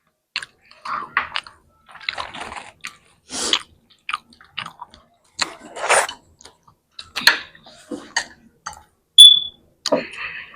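Close-miked chewing and eating noises: irregular short wet mouth clicks and smacks. A brief, sharp, high squeak about nine seconds in is the loudest sound.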